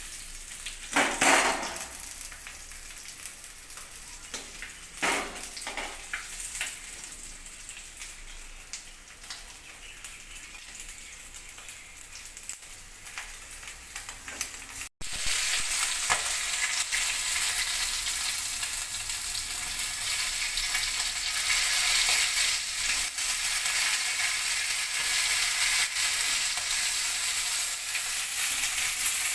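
Pieces of rohu fish frying in mustard oil in a kadai, a steady sizzle. Two sharp knocks of a utensil against the pan come about a second and five seconds in, and from about halfway the sizzle is louder.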